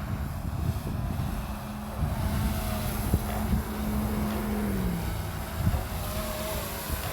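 DJI Phantom 3 Professional quadcopter's propellers humming steadily, the pitch dropping about five seconds in, under heavy wind buffeting on the microphone.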